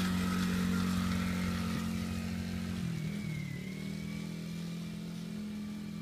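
Small engine of a Polaris Outlaw 50 youth ATV running steadily as the quad drives away, slowly growing fainter. Its note dips briefly about three seconds in, then settles at a slightly different pitch.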